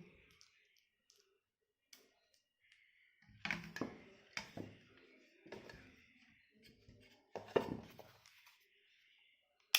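Handling knocks and clicks from a partly disassembled clamp multimeter as it is switched on: separate sharp knocks about a second apart from a few seconds in, the loudest near the end, with a faint hiss between them.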